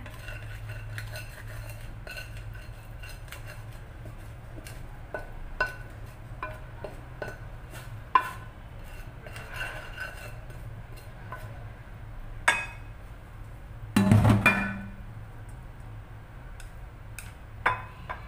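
Kitchen utensils clinking and tapping against a bowl and dishes while spring roll filling is mixed, in scattered single clicks, with a louder clatter about fourteen seconds in.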